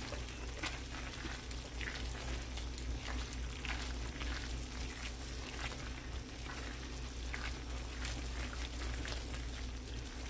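Cream sauce sizzling in a frying pan as tongs toss spaghetti and chicken through it: a steady sizzle with soft, scattered stirring sounds.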